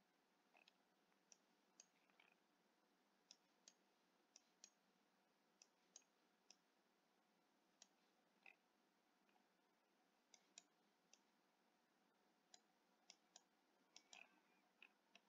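Faint, irregular computer mouse clicks, about twenty of them, over near silence.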